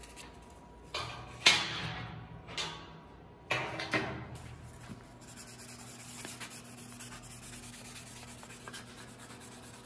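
A few short hisses from a trigger spray bottle of WD-40, wetting 600-grit wet/dry sandpaper, the loudest about a second and a half in. Then steady hand rubbing as a metal body-hammer face is wet-sanded on the paper.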